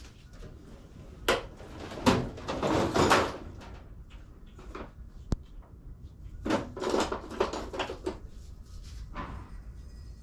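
Irregular clunks and scrapes of things being handled and moved about, loudest between about two and three seconds in, with one sharp click near the middle.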